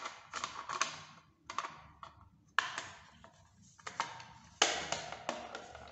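Hard plastic clicks and knocks, several in an irregular series about a second apart, as a Hikvision fingerprint time-attendance terminal's casing is handled and pushed onto its mounting plate.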